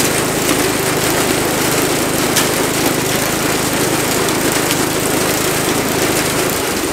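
Homemade firewood processor running steadily under its engine, with a light knock about two and a half seconds in as split wood drops onto the pile.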